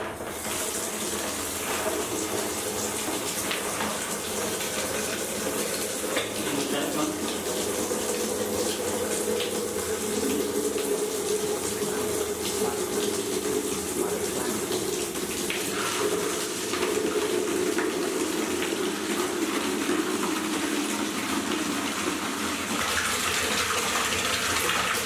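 Water running from a wall tap into a plastic basin, a steady stream splashing into the water as the basin fills; it starts suddenly as the tap is opened.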